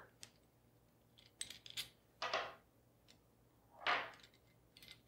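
Faint metallic clicks and clinks as a vent valve's mounting bolts are unscrewed and handled, with a short cluster of clicks about a second and a half in. Two short, soft rushing noises come about two and four seconds in.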